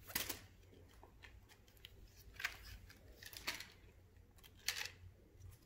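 Magna-Tiles, plastic magnetic building tiles, clicking and clacking against each other as they are picked up and handled: a few separate sharp clicks.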